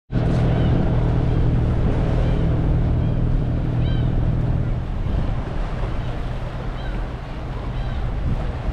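Tour boat's engine droning with wind and water noise, the steady hum easing about five seconds in. Seagulls call a few times, short and high, over it.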